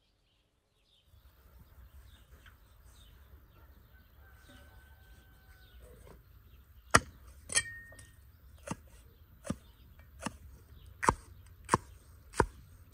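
Meat cleaver chopping red pepper on a wooden tree-stump block: about eight sharp chops a little under a second apart, starting about halfway in.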